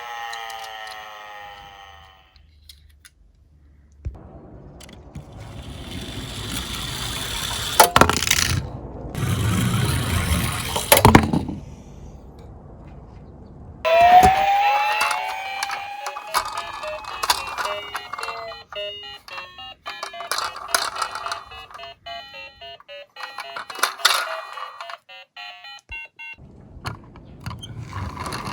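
A toy police siren winding down and stopping, then a die-cast minicar rolling on a toy slope with two sharp clacks. About halfway through, a burst of electronic toy tones starts suddenly: pitch glides and many short beeps.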